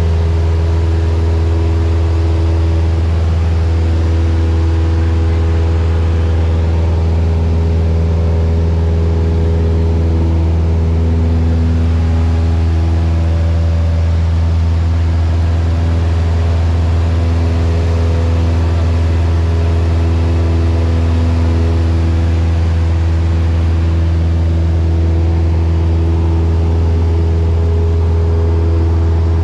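Cessna single-engine light airplane's piston engine and propeller droning steadily in flight, heard inside the cabin: a loud, deep, even hum with higher tones that slowly waver.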